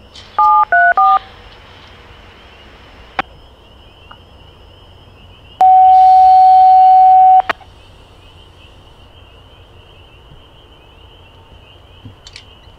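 Railroad radio traffic heard through a scanner: three quick touch-tone (DTMF) beeps, then about three seconds later a single long steady tone lasting about two seconds. A faint steady high chirring runs underneath.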